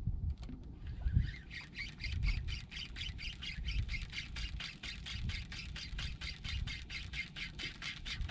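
Spinning reel being cranked on a retrieve: a steady, rapid clicking at about five to six clicks a second that starts about a second in, over a low uneven rumble.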